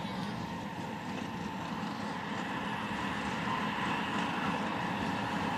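Snowdon Mountain Railway rack locomotive running with a steady mechanical noise that grows gradually louder.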